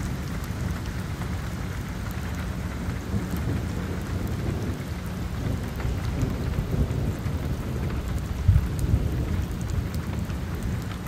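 Heavy rain falling steadily on wet pavement during a thunderstorm, over a low rumble of thunder that swells briefly about eight and a half seconds in.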